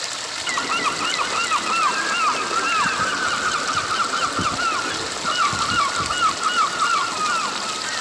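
Shallow stream rushing and splashing over rocks, with birds calling in quick runs of short chirps through most of it, pausing briefly about five seconds in.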